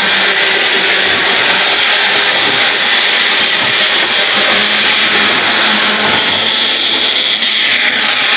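Model railway locomotive (an A4) running on the layout: its small electric motor and wheels on the track make a steady whirring noise.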